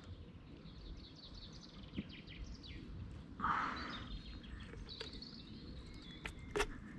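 Quiet waterside ambience with faint birds chirping, a short splash of water about halfway through from the wels catfish held at the kayak's side, and a couple of sharp clicks near the end.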